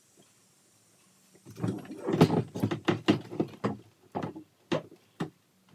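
A run of irregular knocks and clunks, about three or four a second, starting about a second and a half in: the Sea-Doo's two-stroke engine being rocked and wrestled against its hull and mounts while it refuses to come out.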